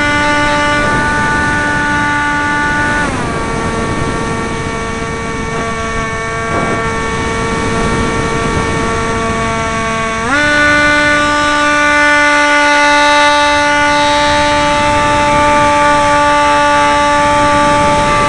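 Electric brushless motor and 5x5 propeller of a Bixler RC plane whining steadily over wind rush. About three seconds in the pitch glides down as the throttle is eased back, and about ten seconds in it climbs back up to full pitch.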